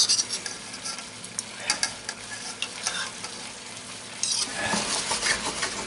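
Hake and prawns sizzling in wine in a frying pan while the wine cooks off, with tongs clicking and scraping against the pan as they are stirred. The sizzle and clicking get louder for a second or so about four seconds in.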